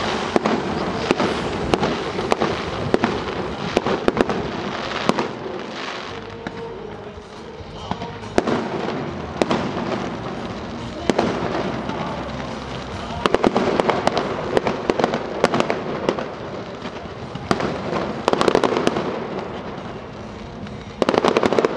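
Fireworks display: rapid crackling and popping of bursting shells. It eases off a little about a third of the way in, then thickens into dense spells of crackle in the second half and again near the end.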